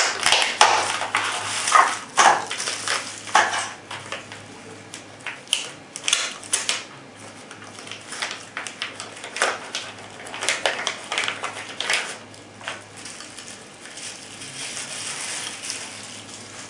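Clear plastic blister packaging crackling and clicking as it is bent and pulled open by hand. Dense crackling for the first few seconds, then scattered clicks and crinkles.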